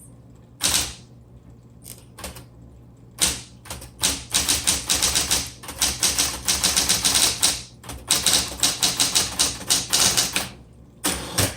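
Smith Corona Coronet Automatic 12 electric typewriter being typed on: a few single keystrokes, then fast runs of sharp key strikes with a short pause in the middle. A steady low motor hum runs underneath.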